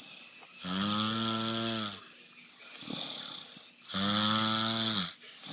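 A man snoring: two long, droning snores about three seconds apart, each a low pitched tone like a cow's moo that sags in pitch at the end, with a fainter breath between them.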